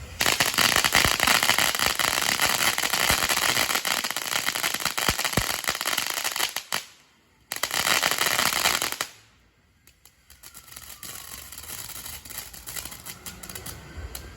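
Consumer firework going off in a dense, rapid crackle of pops for about seven seconds. It stops abruptly, then a second burst crackles for about a second and a half. Faint distant sirens wail near the end.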